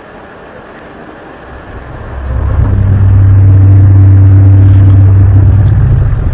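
A deep, steady droning hum that swells up about two seconds in and then holds loud, pitched low with a few overtones above it.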